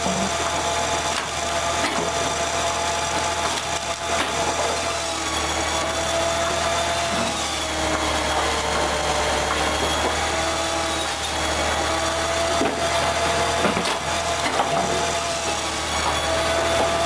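Firewood processor running steadily as its saw cuts logs, the machine's tone sagging in pitch twice as the blade takes the load, with a few knocks of wood pieces.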